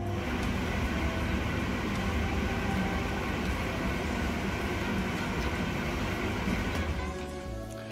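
AEG tumble dryer test-running with its casing open, its motor turning the drum through a newly fitted drive belt. The machine noise starts suddenly, runs steadily and dies down near the end.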